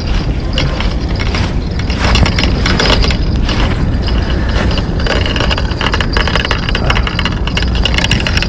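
Spinning reel being cranked steadily to wind in a hooked fish, its faint rapid ticking under a loud, steady rushing rumble.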